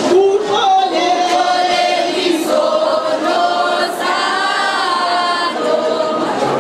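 A large group of high-school students singing together as a choir, in long held notes.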